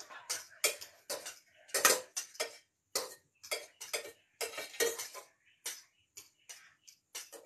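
Metal spoon clinking and scraping against a stainless steel cooking pot as noodles are stirred: irregular sharp clinks, several a second.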